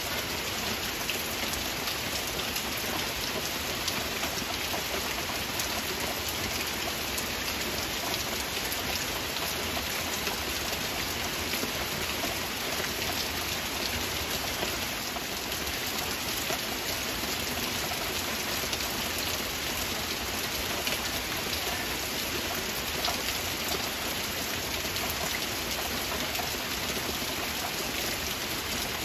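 Heavy rain falling steadily: an even rushing hiss with many individual drops ticking through it, unchanging throughout.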